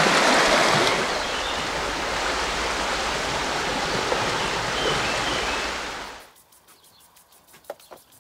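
Fast-flowing river rushing over a stony bed in a steady rush of water noise that cuts off abruptly about six seconds in. After that it is near quiet, with a couple of faint clicks near the end.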